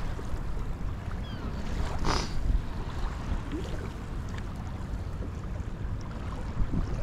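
Wind buffeting the microphone and small waves lapping against a fishing kayak's hull, with a brief hiss about two seconds in.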